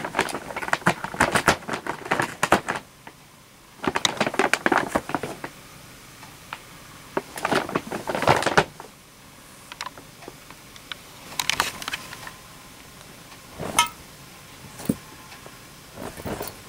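Brown paper bags crinkling and rustling in bursts as cats climb into them and shift about inside, with a few sharper crackles later and the light jingle of a small collar bell.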